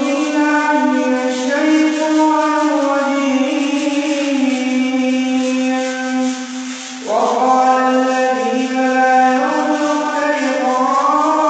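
A man reciting the Quran in a melodic, chanted style, holding long drawn-out notes. He pauses briefly about seven seconds in, then starts a new phrase.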